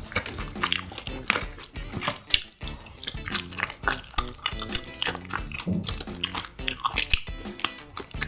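Close-miked chewing and wet mouth sounds of eating spicy marinated duck and fried rice, with chopsticks clicking against a plate or bowl now and then.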